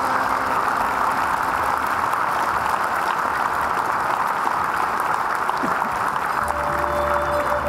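Audience applauding steadily in a large venue, with the music coming back in under it near the end.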